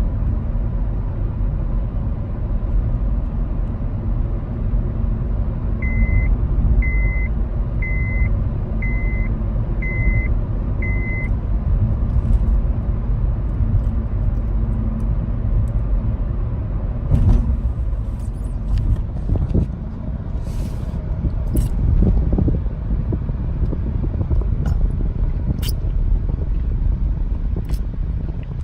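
Steady low rumble with six short, high beeps about a second apart near the middle, and a few scattered clicks and knocks later on.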